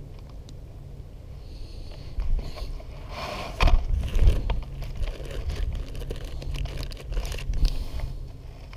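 Close handling noise: scraping, clicking and crinkling as a plastic bag of soft-plastic grub baits is handled while a jig hook is re-rigged, busier and louder from about three seconds in.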